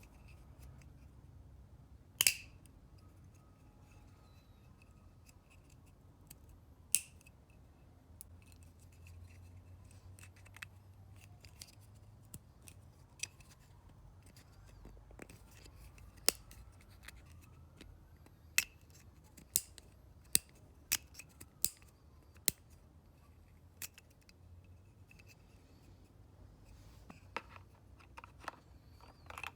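Scattered sharp plastic clicks and snaps as the parts of a motorcycle fairing vent are handled and fitted back together, irregular and a few seconds apart, with a faint low hum underneath.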